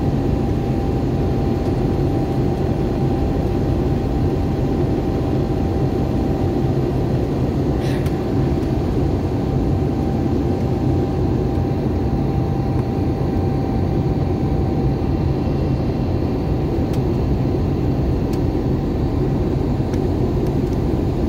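Steady cabin drone of a passenger airliner in flight: engine and airflow rumble with a thin steady hum over it.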